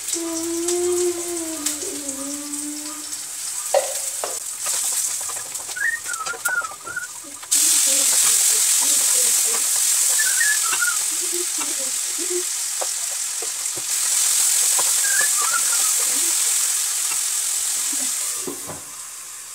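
Food frying in oil in a non-stick kadhai, sizzling steadily. About a third of the way in the sizzle suddenly grows much louder, and a spatula scrapes and stirs through it. Near the end the sizzle drops back.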